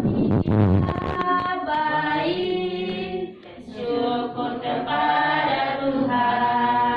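A group of voices singing a slow song in long held notes, with a short pause a little over three seconds in.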